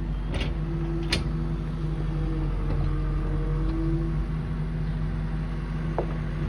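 1968 Chevrolet K20 pickup truck's engine running steadily under way, a low rumble with a steady hum. Two short sharp rattles sound within the first second or so.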